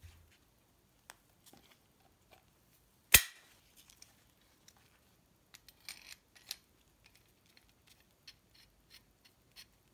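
Brass and cast-iron parts of a restored gasoline blowtorch clicking and tapping against each other as they are fitted together by hand. A single sharp metallic click about three seconds in is the loudest, followed by a cluster of light taps around six seconds and small scattered ticks as the brass valve spindle is brought in to be threaded into the body.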